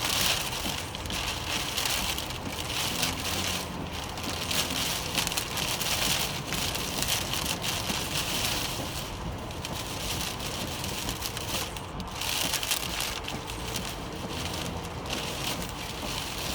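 Steady rain falling during a thunderstorm: an even hiss that swells and dips every few seconds.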